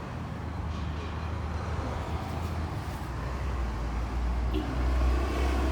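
Road traffic: a vehicle engine's low rumble that grows louder over the last couple of seconds as it passes close by.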